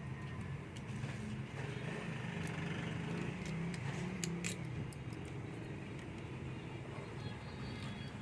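Automatic slot-insulation paper insertion machine for ceiling fan stators running: a steady motor hum with sharp clicks every second or so, irregularly spaced.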